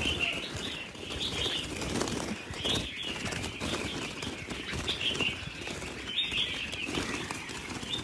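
Caged red-whiskered bulbuls fluttering and flapping their wings in panic against the wire mesh as a hand grabs among them, with short high chirps now and then.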